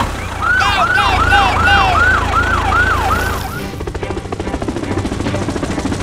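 Police siren sound effect sweeping up and down quickly, about three cycles a second, over a low engine rumble. The siren cuts out and a helicopter rotor chop takes over about four seconds in.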